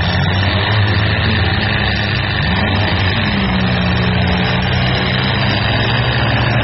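Demolition derby cars' engines running loud and steady, with an engine's pitch dipping and rising again about halfway through as it is revved.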